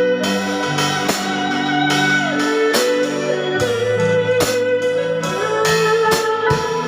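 Live band playing an instrumental passage of a classic Chinese pop song: a sustained electric guitar melody over keyboard chords and bass, with a drum hit roughly every second and no singing.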